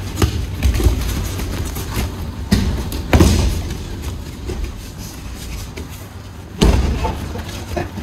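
Aikido practitioners' bodies thudding onto the mats as they take breakfalls after throws. There are several heavy thuds, at about two and a half, three and six and a half seconds in, and the one at about three seconds is the loudest.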